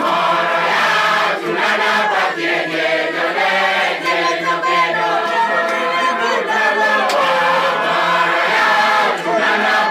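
Church congregation, mostly women, singing a praise song together loudly and without a break.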